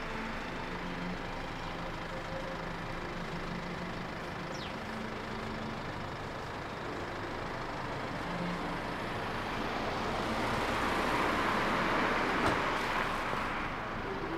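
Steady hum of road traffic, swelling as a vehicle passes from about ten to thirteen seconds in, with a short tick near the loudest point.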